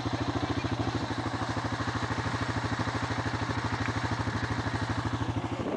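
A vehicle engine running steadily at low revs, with a fast, even pulsing beat.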